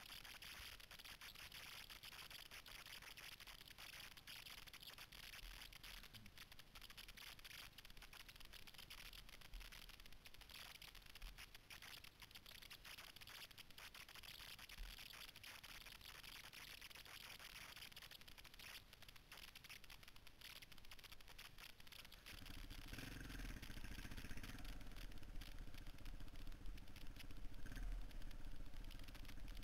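Faint hiss with light crunching ticks of tyres on a gravel track as motorcycles roll downhill. About 22 seconds in, a motorcycle engine comes in and runs, getting louder near the end.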